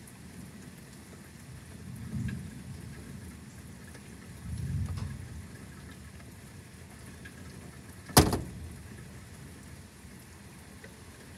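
Steady rain during a thunderstorm, with thunder rumbling low twice in the first half, then a single sharp crack about eight seconds in, the loudest sound here.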